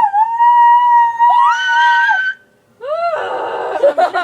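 Girls' voices singing a long, held high note in a mock-opera style, with a second voice sliding up to join above it about a second in. After a short break comes a rough, shrieking cry that rises and falls.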